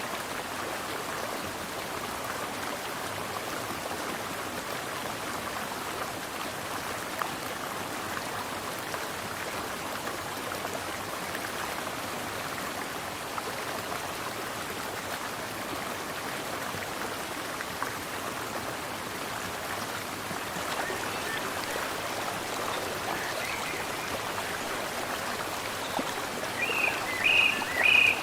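Mountain stream flowing steadily, a continuous rush of water. Near the end a bird gives a few short, high chirps over it.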